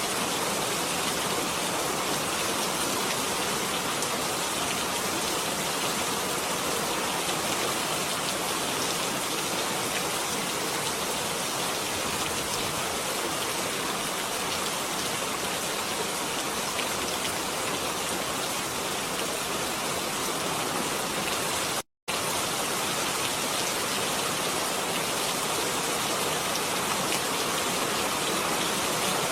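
Steady, even rainfall. The sound cuts out for a split second about three quarters of the way through, then carries on unchanged.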